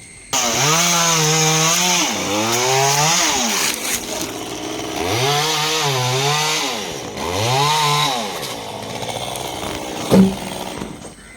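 Chainsaw cutting into a coconut palm trunk. It starts suddenly just after the opening and its engine pitch rises and drops several times as the chain bites into the wood and frees. A short sharp knock comes near the end.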